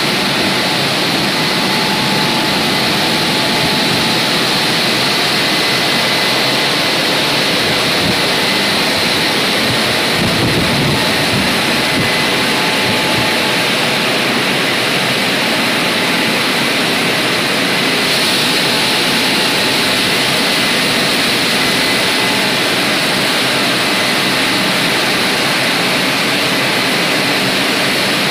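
WashTec gantry car wash machine running, its rotating brushes and water spray scrubbing over a car, making a loud, steady rushing noise with a faint thin whine above it.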